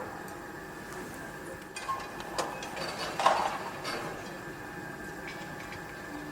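Construction-site ambience: a steady machinery hum with scattered metallic clinks and knocks, the loudest a clank just over three seconds in.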